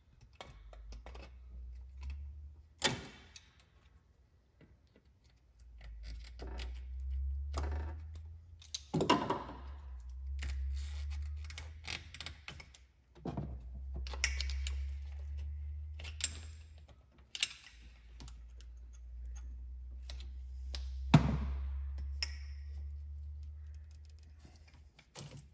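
Scattered clicks, taps and knocks of hands and a screwdriver working loose hoses, clamps and plastic fittings on a Nissan GT-R's intake piping, with one sharper knock near the end.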